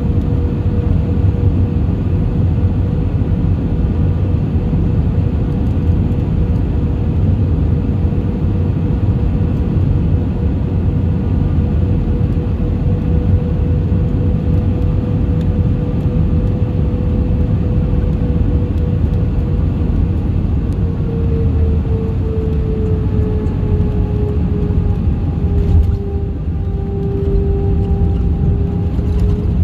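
Airbus A320's CFM56 engines and rushing air heard from inside the cabin on final approach and landing: a steady low rumble with one held engine tone. About two-thirds of the way through the engine tone drops, a short thump comes near the end as the wheels touch down, and the tone then starts rising again as the aircraft rolls on the runway with its ground spoilers up.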